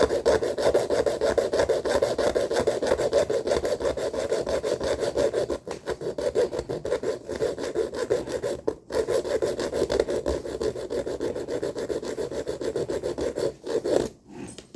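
A hand saw blade cutting through the bike rack's over-long notched mounting strut with quick, even back-and-forth strokes. There are two short breaks along the way, and the sawing stops near the end.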